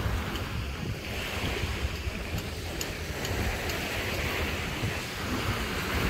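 Small waves washing onto a sandy beach, with two surges of surf a few seconds apart, and wind rumbling on the microphone.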